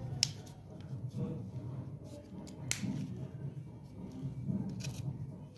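Pliers working the rubber sleeve off an electric iron's old power cord: quiet handling with three sharp clicks, about a quarter second in, near the middle and near the end.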